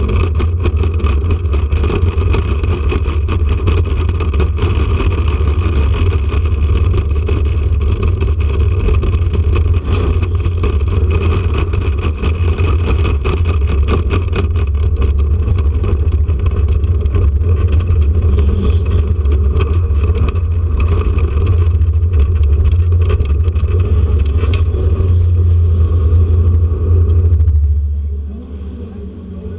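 Air-cooled flat-six engine of a 1979 Porsche 911 RSR race car, heard from inside the car, running hard at fairly steady revs. Near the end the engine note drops away and goes quieter.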